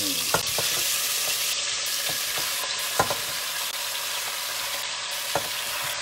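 Goat meat searing in hot ghee in an open pressure cooker: a steady sizzle as more pieces go in, with a few sharp clicks, the loudest about three seconds in.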